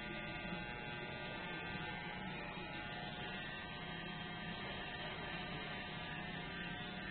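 Corded electric hair clippers running with a steady buzz as they trim hair.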